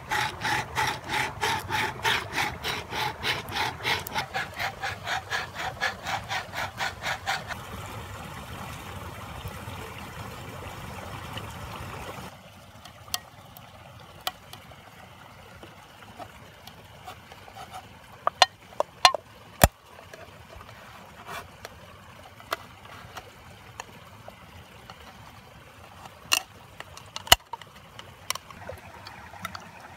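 A tin can's rim scraped back and forth on a wet stone at about three strokes a second, grinding through the lid's seam. After about twelve seconds this gives way to a knife blade prying the loosened lid off the can, with scattered sharp metal clicks.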